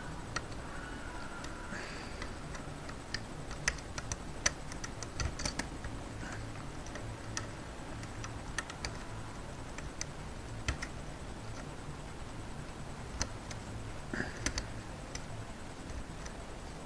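Steel lock picks working in a euro cylinder lock: light, irregular metallic ticks and clicks as the pick and tension tail move against the pin stack, coming in small clusters.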